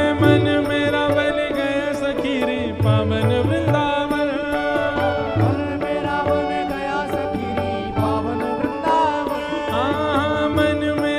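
Instrumental interlude of a Hindi devotional bhajan: a sustained melody line over a hand-drum beat, with a crowd clapping along.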